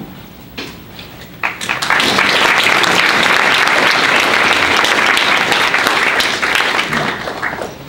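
Audience applauding: a few scattered claps about a second and a half in, swelling quickly into full applause that holds for several seconds, then dying away near the end.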